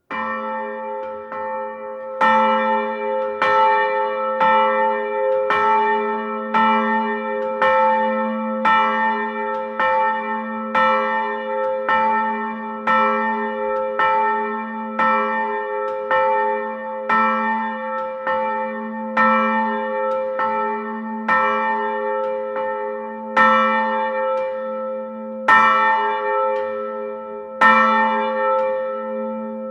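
A bell tolling repeatedly, about one stroke a second, each stroke's ringing overlapping the next so the tone hangs on. The strokes are softer for the first couple of seconds, then louder.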